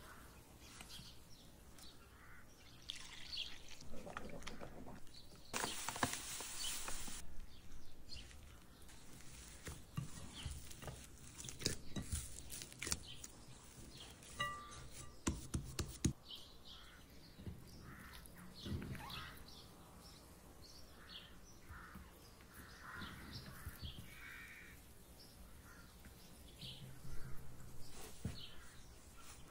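Wholemeal sourdough dough being mixed and kneaded by hand in a ceramic bowl and then folded on a floured table: sticky, wet handling noises with frequent small knocks and taps. Near the start a pour of liquid hisses for about a second and a half.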